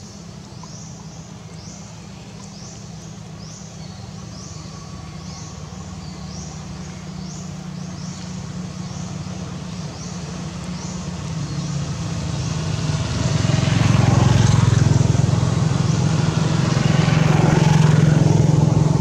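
A motor engine's low steady drone, growing much louder from about twelve seconds in. Over the first half, a high chirp repeats about three times every two seconds.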